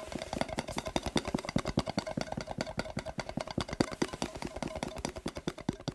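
Fast tapping on a glass mason jar, about ten taps a second, with the jar ringing at a steady pitch under the taps.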